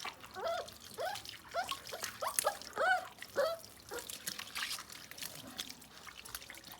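Water trickling over a dog being bathed, with a run of short, high rising-and-falling whimpers from the dog during the first few seconds.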